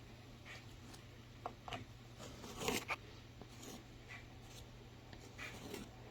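Small spatula scraping wall repair paste onto a damaged spot on a wall, in quiet, irregular short strokes, the loudest a little under three seconds in.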